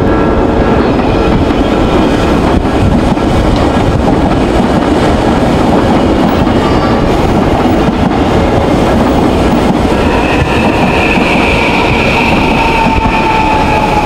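Odakyu Line commuter train running close past a level crossing, wheels clattering over the rails. About ten seconds in, a high whine comes in and falls slightly in pitch.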